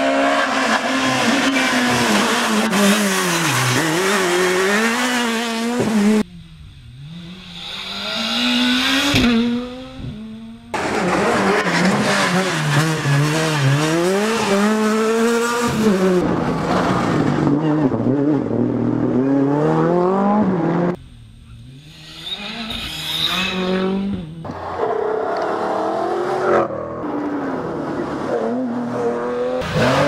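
Rally cars driven flat out on a tarmac stage, the engine note climbing and falling again and again with each gear change and lift off the throttle, over several separate passes. Twice the sound drops abruptly to a quieter, more distant car before loud engine noise returns.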